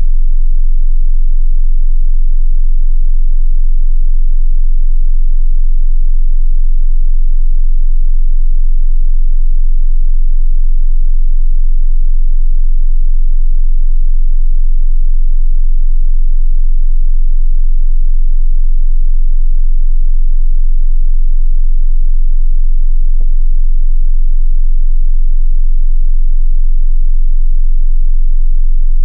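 A steady 22 Hz sine-wave test tone, a continuous very deep bass hum at constant loudness for testing subwoofers. A single faint click about 23 seconds in.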